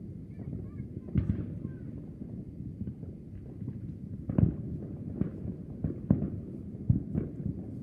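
A steady low rumble with about half a dozen dull thumps and pops at irregular intervals, the loudest about four and a half seconds in.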